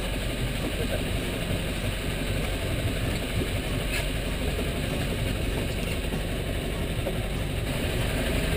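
A motorboat's engine idling steadily, under a wash of wind and sea noise, with a faint click about four seconds in.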